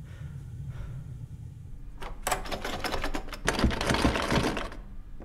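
Door lock hardware being worked by hand: a dense run of clicks and rattles starting about two seconds in, in two spells, the second louder, lasting nearly three seconds. A low hum sits under it before the clicking starts.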